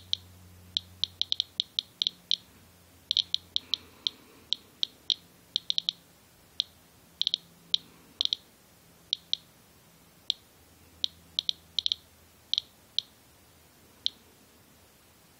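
Medcom Inspector USB Geiger counter chirping once for each detected count: short, high clicks at random intervals, sometimes bunched several together, at a rate of about 150 to 190 counts per minute. That is several times the normal background of about 40 counts per minute, a sign of radioactive contamination on the winter coat it is measuring.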